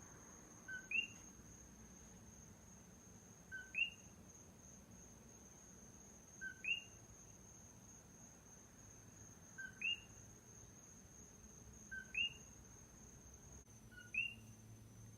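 A single common coqui frog calling its two-note "co-QUI": a short lower note followed at once by a higher note that sweeps upward, repeated six times about every two and a half to three seconds. A faint steady high-pitched tone runs underneath.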